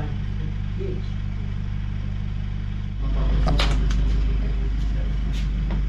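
Steady low mechanical hum. About three seconds in it becomes a louder low rumble, with a few sharp knocks and clunks soon after and again near the end, as feet step up into the back of a van.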